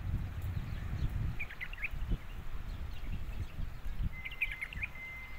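Small birds chirping in two short bursts, about a second and a half in and again near the end, over a steady low rumble.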